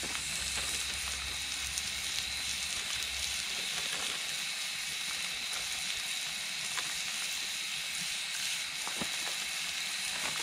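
Frozen hamburger patties sizzling steadily on a cast-iron griddle over a campfire, with a few faint crackles from the fire.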